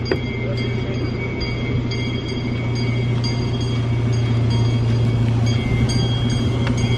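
A small park train's engine running steadily close by, a loud low hum with faint regular ticking over it, growing slightly louder.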